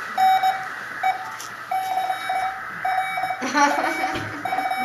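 Morse code: a single steady beep keyed on and off in short and long elements, the dots and dashes of a message being sent.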